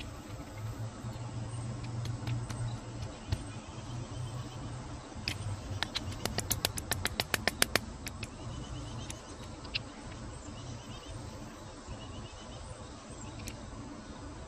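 A quick run of about fifteen light, sharp clicks over two seconds, growing louder, with a few single clicks before and after over a low steady rumble. The clicks come from a homemade blackpowder pistol and a screwdriver being handled.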